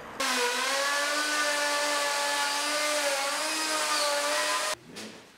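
Handheld plunge router cutting a plywood sheet: a steady high motor whine over cutting hiss, dipping slightly in pitch just after it starts. It stops abruptly near the end.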